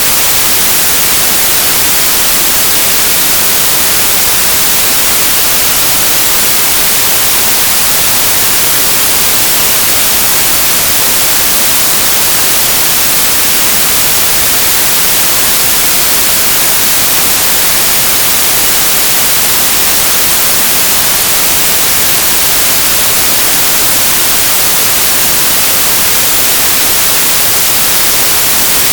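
Synthesized white noise: a steady, bright hiss with no changes.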